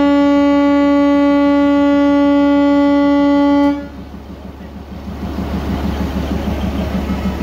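Darjeeling Himalayan Railway diesel locomotive No. 603 sounding its horn in one long, steady single-note blast that cuts off sharply a little over halfway through. Its diesel engine is then heard idling with an even pulse.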